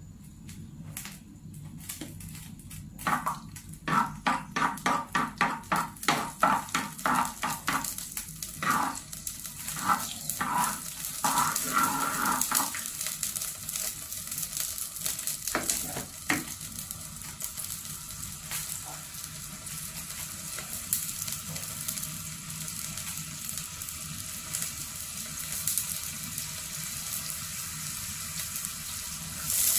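Wooden spoon scraping rhythmically around a pot of oil, two to three strokes a second, after a short run of clicks. It gives way to the steady sizzle of hot frying oil, which gets louder at the very end as ingredients drop into it.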